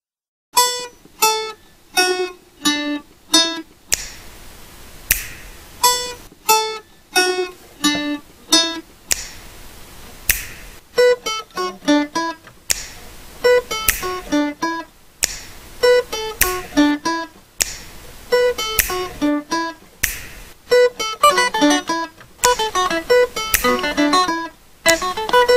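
Background music on acoustic guitar: plucked notes and strums in a steady run, starting about half a second in.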